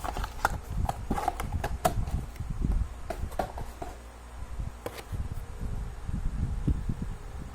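Diecast model airliner packaging being handled and opened close to the microphone: scattered clicks and taps, thickest in the first few seconds, over a low rumble of handling.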